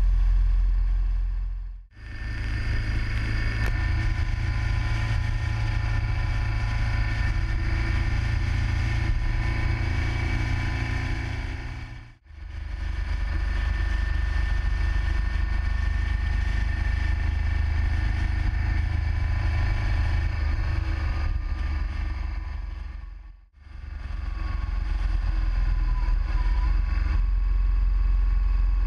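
Riding sound from a motorcycle at road speed, picked up by a camera mounted on the bike: steady engine and wind noise, heaviest in the low rumble. It fades out briefly about 2, 12 and 23 seconds in, where separate stretches of riding are joined.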